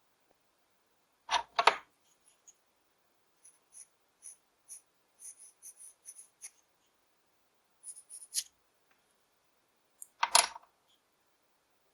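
Woodcarving knife slicing a basswood stick: a pair of longer cuts, then a run of small quick nicking cuts, and another longer cut near the end.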